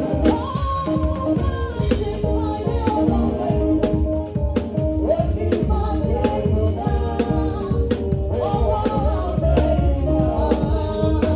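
A Ghanaian gospel praise song played live on a drum kit with cymbals and an electric bass, keeping a steady beat under group singing.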